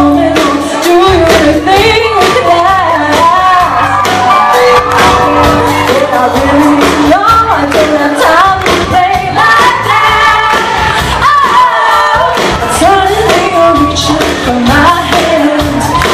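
Live band playing a pop-rock song with a female lead vocalist singing, drums keeping a steady beat, recorded loud from the audience.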